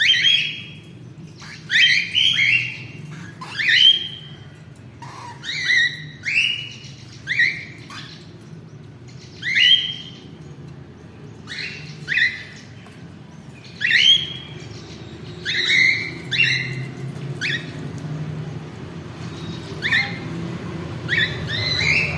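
Cockatiel chicks calling: loud short squawking calls that bend in pitch, repeated every second or two, often in twos or threes.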